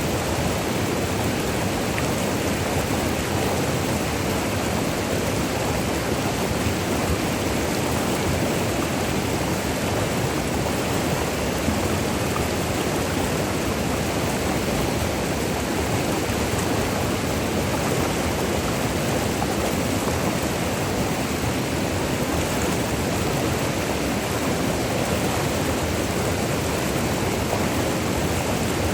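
Virgin River water rushing and splashing in a steady, unbroken roar.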